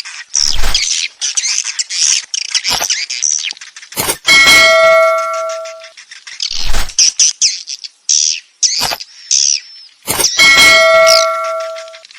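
Swiftlet roosting-call lure audio for a swiftlet house: dense, high swiftlet chirps and twitters, with a ringing bell-like tone with overtones sounding twice, about six seconds apart, and short low thumps in between.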